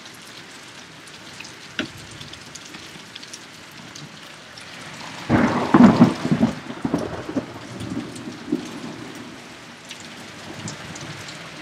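Steady rain falling, with a loud thunderclap breaking out about five seconds in, crackling and then rumbling away over the next few seconds.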